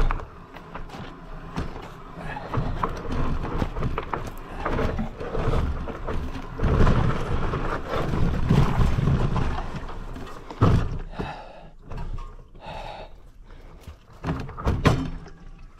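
Mountain bike riding over a rough dirt trail: irregular rattles, knocks and crunching, with a rumble that swells and fades on the microphone.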